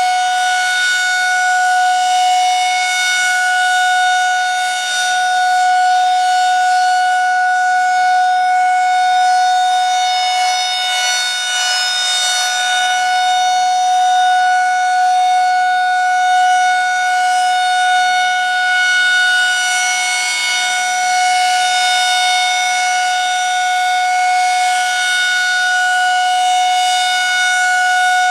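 Federal Signal 2001 SRNB rotating outdoor warning siren sounding its alert signal: one steady, loud tone held at a constant pitch. The tone swells and fades a little every several seconds as the siren head turns.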